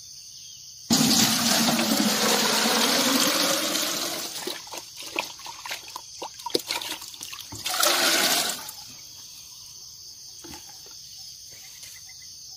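Liquid fertilizer solution poured into a galvanized metal watering can: a heavy pour starts about a second in, its pitch rising as the can fills. Scattered drips and splashes follow, then a second short pour near the end.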